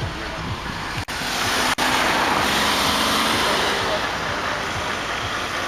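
Wind and road noise from inside a moving vehicle, a steady rushing. The sound cuts out twice, briefly, about a second in and just under two seconds in, after which the wind rush is louder.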